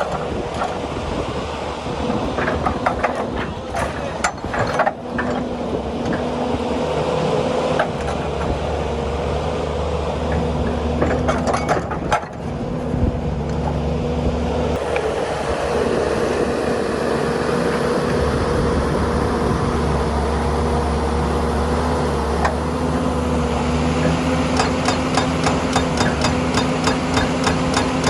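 Heavy equipment engines running steadily, with scattered knocks and clanks; the sound shifts abruptly a few times as one machine gives way to another.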